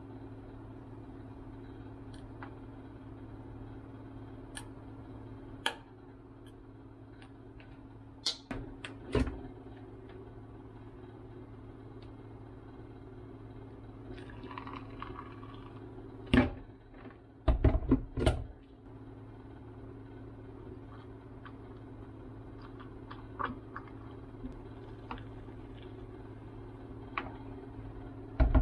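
Kitchen handling sounds over a steady low hum: a few sharp clicks from a plastic honey bottle's flip cap, then a short soft pour of hot water from an electric kettle into a glass. Right after the pour come several loud knocks as the kettle and its lid are set back down, and light ticks near the end as a spoon goes into the glass.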